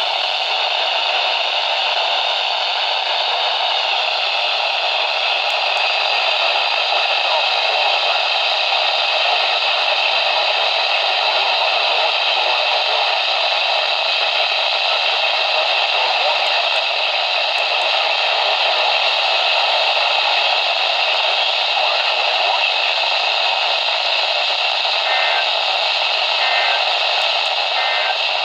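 Steady hiss of radio static from a receiver, with no speech on it.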